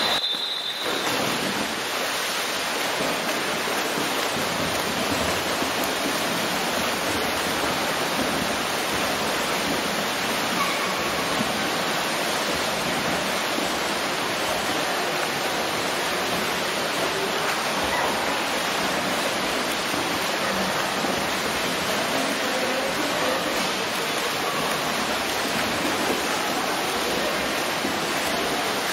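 Swimmers splashing as they race freestyle along the pool, a steady wash of churning water. A brief high start signal sounds right at the outset.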